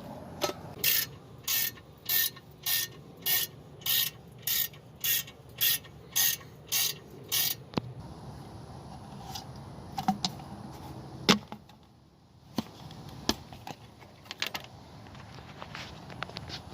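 Ratchet wrench worked in about a dozen even strokes, roughly two a second, each stroke a short rasp of pawl clicks; it then gives way to scattered tool clicks and knocks, one louder knock about eleven seconds in.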